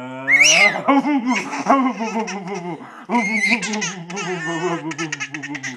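Baby laughing hard while being tickled and nuzzled, with high squeals about half a second in and again near the middle, and quick bursts of laughter near the end. A man's low, drawn-out playful monster voice runs underneath.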